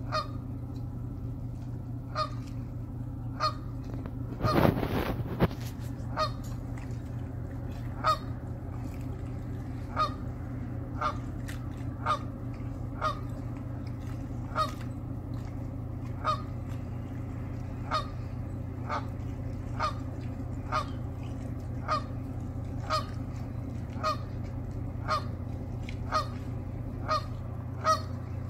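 Canada geese honking repeatedly, about one honk a second, disturbed by a passing ship, over a steady low drone. A brief louder burst of noise comes about four and a half seconds in.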